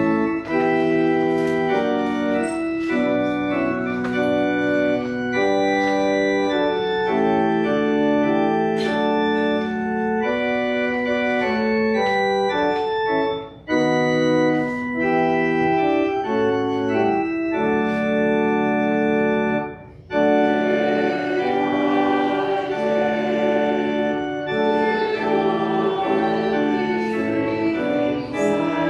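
Church organ playing a hymn in sustained, changing chords, pausing briefly twice between phrases. In the last third a congregation is heard singing along with it.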